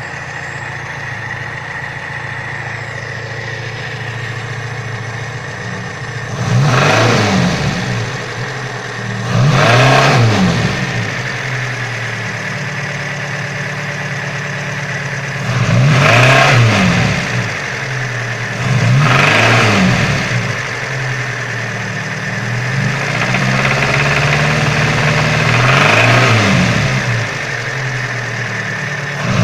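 Car engine idling, then revved in short blips again and again from about six seconds in, each rising and falling in pitch. The owner hears a knock that is absent at idle and comes in off idle; it remained after he replaced a timing chain guide that had broken off its mount.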